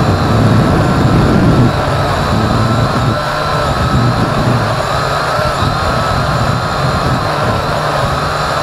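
Syma X8C quadcopter's motors and propellers whining in flight, heard from the onboard action camera. The pitch wavers up and down as the throttle changes, over a steady low rumble.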